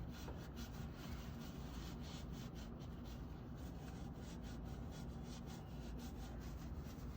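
Quick, repeated scrubbing strokes as a flush valve's pipe fitting is rubbed clean, faint and scratchy, over a low steady hum.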